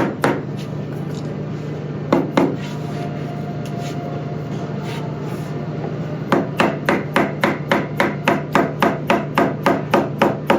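Small mallet tapping a cabinet panel into its gable until it locks: a tap at the start, two more about two seconds in, then after a pause of about four seconds a fast run of taps, about four a second. A steady low hum lies underneath.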